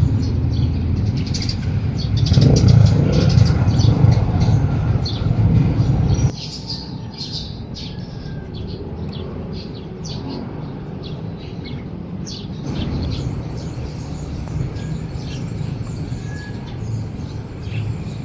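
Birds chirping, many short high calls throughout, over a low rumble that is loud for the first six seconds, then drops off suddenly and rises a little again about thirteen seconds in.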